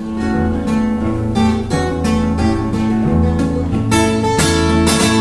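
Acoustic guitar played solo in a steady, even rhythm of about three strokes a second over a repeating bass-note pattern.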